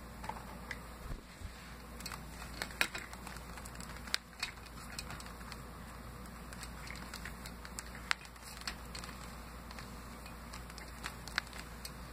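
Scattered light clicks and taps of a doll being swung by hand around a toy gymnastics bar, its hands and grips knocking on the bar, over a low steady hum.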